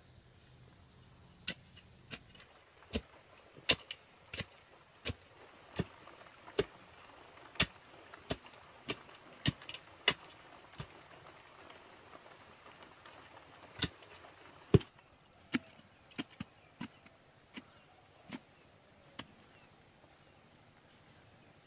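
Sharp knocks of a hand tool striking wood, repeated about once a second for some ten seconds, then after a pause a handful more, the loudest among them.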